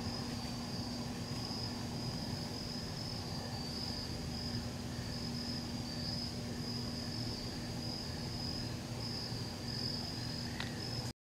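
Crickets chirping in a steady high-pitched chorus over a low steady hum, with one faint tick near the end; the sound cuts off suddenly just before the end.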